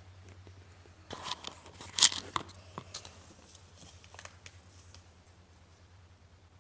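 Small plastic-foil wrapper from an L.O.L. Surprise doll pack crinkling and tearing in the hands as it is opened, a burst of crackles about a second in with the sharpest tear near two seconds, then a few lighter rustles.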